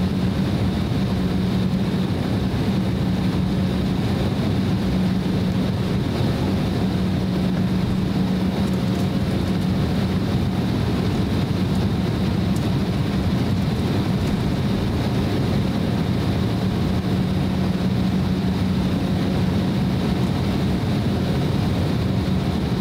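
Cabin noise inside an Embraer E190 airliner taxiing. Its two GE CF34 turbofan engines run at taxi thrust, a steady dense rumble with a constant low hum.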